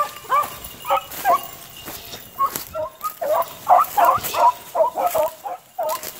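A pack of beagles baying as they run a rabbit's scent trail, many dogs' calls overlapping, growing denser about halfway through.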